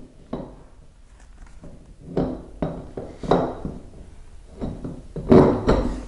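Scattered knocks and clinks as a mobility scooter wheel is handled and bumped against the hub's wheel posts while being lined up and pushed on, the loudest cluster near the end.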